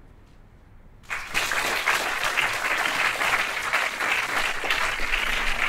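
Audience applauding: after about a second of quiet, many people break into clapping at once and keep clapping steadily.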